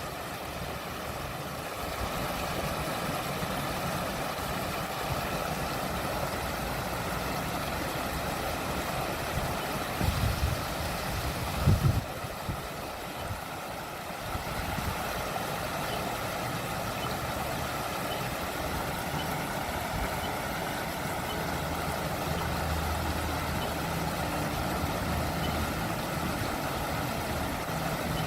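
Water running and splashing steadily in a landscaped garden water feature, an even rushing sound. A couple of brief low rumbles break in about ten and twelve seconds in.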